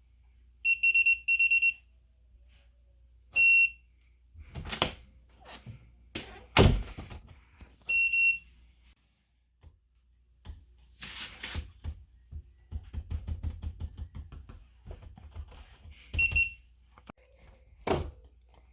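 Electronic smart door lock with fingerprint reader giving short, high single beeps, a pair about a second in and single ones later, as a finger is tried on the reader. Between the beeps come knocks and clatter from handling the lock, the loudest a thump midway, and a quick rattling run.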